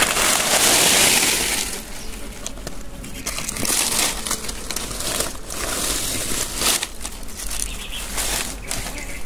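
Dry leaves crackling and rustling as a hand brushes them aside from a rock crevice. The crackle is loudest in the first couple of seconds, then comes in short, irregular bursts.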